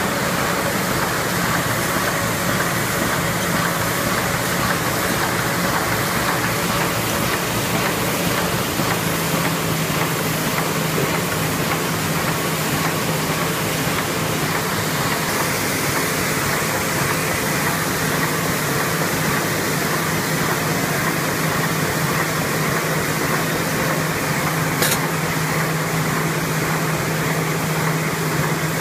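PF-EMS express mail envelope making machine running in production, a steady mechanical din of its feed, folding and roller sections over a constant low hum. A single sharp click sounds near the end.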